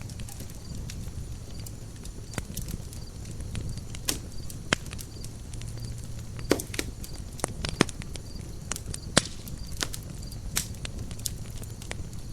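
Campfire burning: wood crackling with sharp, irregular pops, a few of them loud, over a steady low rumble.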